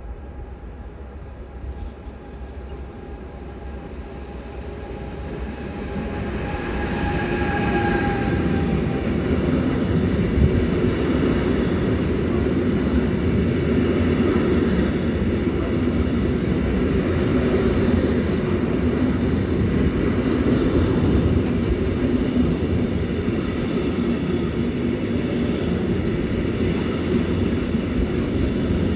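A long intermodal freight train hauled by an E494 electric locomotive passes at speed. It grows louder over the first few seconds as it approaches, and a tone from the locomotive falls in pitch as it goes by. Then comes a steady rumble and rhythmic clatter of wagon wheels over the rail joints.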